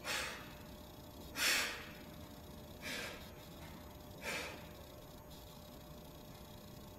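A man's effortful exhalations, four of them about a second and a half apart, one with each rep of hanging leg raises.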